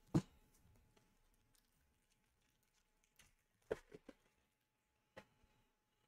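Faint clicks and taps of trading cards being handled and flipped, over near silence: one sharper click right at the start, a quick run of three about two-thirds through, and one more a second later.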